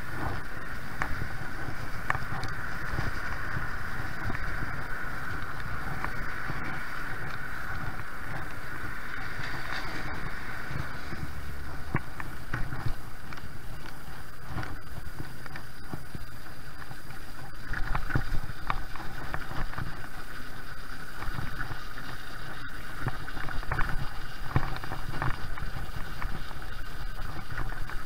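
Two-stroke Zeda 80 motorized-bicycle engine running steadily as the bike rides, with wind rumbling on the microphone and scattered short clicks.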